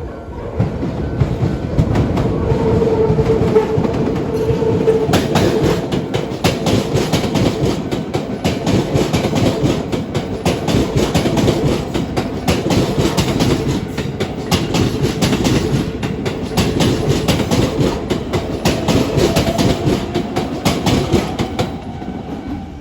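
Keisei AE-series Skyliner electric train passing close by, its wheels clacking rhythmically over the rail joints for about twenty seconds and easing off near the end.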